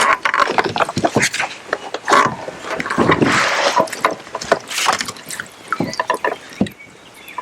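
Splashing water with a run of hard knocks and rattles against a kayak, as a freshly netted largemouth bass is handled in the landing net. The knocks are busiest in the first few seconds and thin out toward the end.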